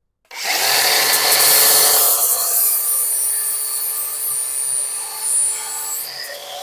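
A power tool running continuously, starting suddenly about a third of a second in and easing slightly after about two seconds.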